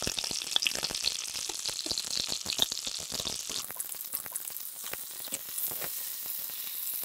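Salmon fillet sizzling in hot fat in a pan, with frequent small crackles of spattering. The hiss grows brighter about three and a half seconds in.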